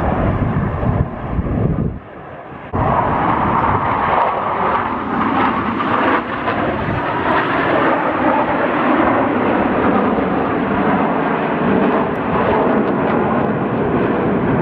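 Blue Angels F/A-18 Super Hornet jets flying overhead in formation: loud, steady jet engine noise. It drops away briefly about two seconds in, then comes back just as loud.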